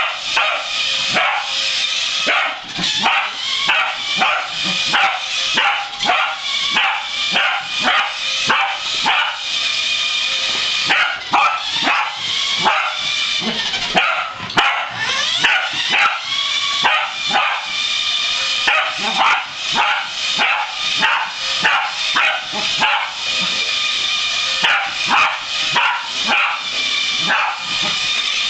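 Corgi barking over and over in short, sharp barks, about two a second, in excited play while chasing a remote-control toy car.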